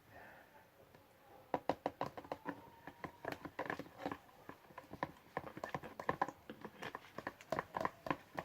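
A utensil stirring glue and liquid laundry detergent in a transparent bowl to make slime, clicking and tapping against the bowl in a quick, irregular run of small knocks that starts about a second and a half in.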